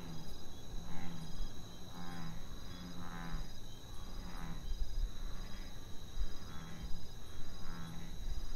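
Night ambience of crickets chirping in a steady, even rhythm over a thin high tone, with a softer rasping call repeating about once a second.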